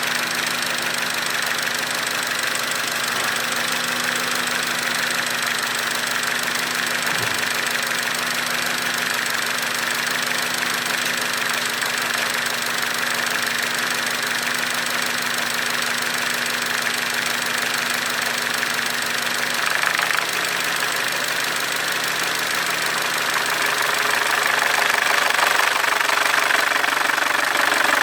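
Audi EA888 gen3 CJE 1.8 TFSI four-cylinder turbo petrol engine running steadily with an extraneous noise in it, the fault being investigated. It gets a little louder near the end.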